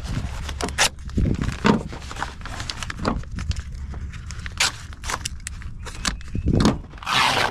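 Knife cutting through the fabric cover of a soft body armor panel: irregular rasping cuts and clicks as the blade saws and the layers are handled, with a longer, louder rasp near the end.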